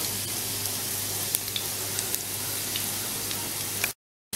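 Chopped garlic sizzling in a little oil in a non-stick wok while a silicone spatula stirs it, a steady hiss with a few small ticks. The sound cuts out for a moment near the end.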